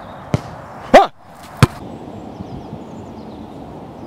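Three short knocks over steady outdoor background noise: a light click, then a louder thump with a brief rising tone about a second in, then a sharp click.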